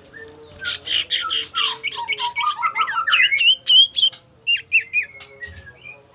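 An iora (cipoh) singing its challenging call at a rival: a fast run of loud whistled notes that sweep down, then climb again, ending in a few sharp separate notes, over a faint steady hum.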